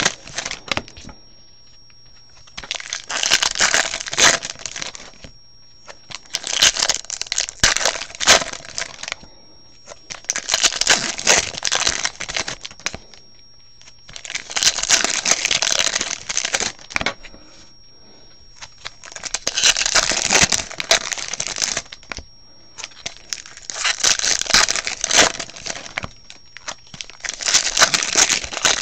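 Foil wrappers of 2015 Bowman Draft baseball card packs being torn open and crinkled in about seven bursts, each a couple of seconds long, with short quiet gaps between.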